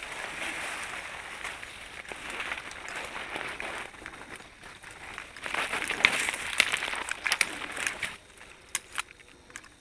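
Footsteps crunching through dry leaf litter and branches brushing against clothing as a person pushes through dense undergrowth, in uneven swells. In the second half it grows louder, with a cluster of sharp snaps and clicks, then a few single snaps near the end.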